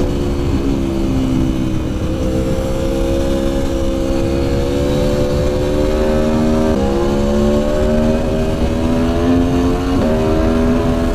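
Aprilia Tuono V4 1100 Factory's V4 engine running under way on the road, its note climbing slowly, with sudden steps in pitch about seven and ten seconds in.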